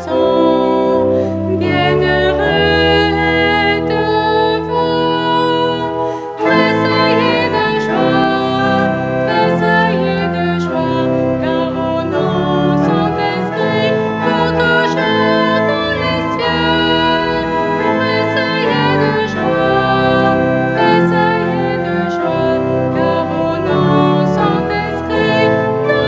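A woman singing with church organ accompaniment. The music breaks off briefly about six seconds in, then carries on.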